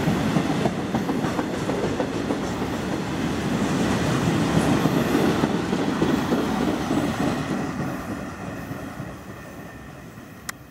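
Loaded covered steel-coil freight wagons rolling past, with a steady heavy rumble of wheels on the rails. From about eight seconds in the sound fades as the end of the train draws away. One sharp click comes near the end.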